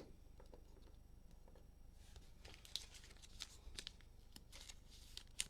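Faint rustling and light clicks of trading cards and plastic sleeves or top loaders being handled, a few sharper clicks in the second half.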